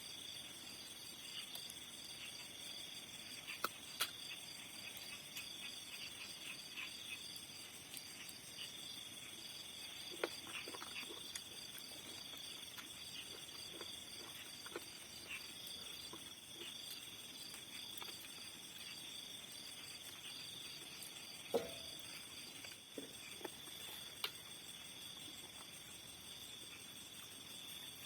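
A steady insect chorus of crickets, one high continuous trill with a faster pulsing trill above it, and a few scattered sharp clicks and knocks, the loudest about four, ten and twenty-one seconds in.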